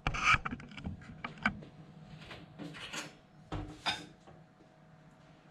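Kitchen handling noise: a clatter right at the start, then scattered light clicks and a couple of knocks as a fork picks at marinated fish in ceramic bowls.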